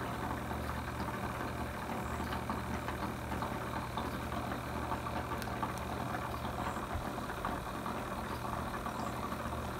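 A steady low machine hum with a dense crackle over it, even in level throughout.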